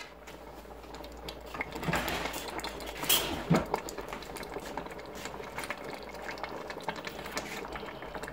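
Thick zucchini adjika simmering in a large pot: a steady patter of small bubbles popping, with a few louder plops about two to four seconds in. The sauce has cooked down and is thickening.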